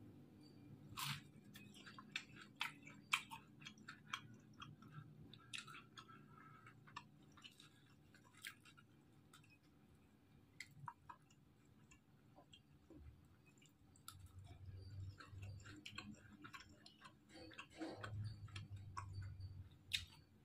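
Faint, scattered clicks of a man chewing fried tofu dipped in raw chili sambal, over near silence.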